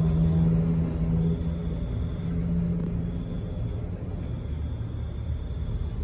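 A low, steady rumble with a hum that fades away over the first few seconds, and a faint high tone that comes and goes.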